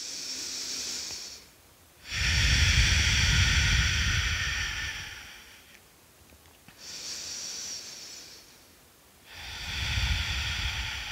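A woman's slow, deep breathing close to a headset microphone: two full breaths in and out, the louder, longer phase of each carrying a low rush of air on the microphone.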